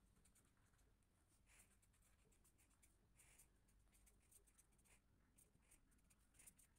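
Very faint scratching of an invisible-ink pen tip on notebook paper, in short irregular strokes as words are written.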